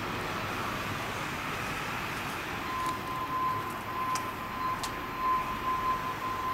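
Steady outdoor traffic noise from the surrounding streets. About three seconds in, a steady high-pitched tone comes in and holds, with a couple of faint clicks.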